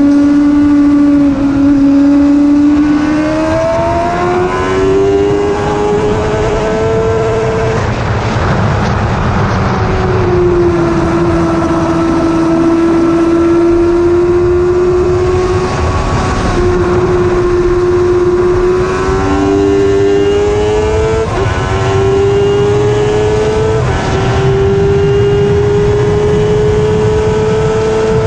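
1000cc sportbike engine running hard on track, its pitch climbing in steps as it is shifted up through the gears, holding fairly steady for several seconds in the middle, then climbing again. A constant rush of wind noise runs under it.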